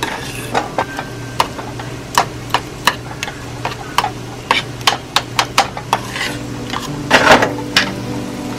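Metal spoon stirring a thick cheese sauce in a stainless-steel saucepan, clinking and scraping against the pan's sides and bottom in irregular strokes, about two a second, with a longer, louder scrape about seven seconds in.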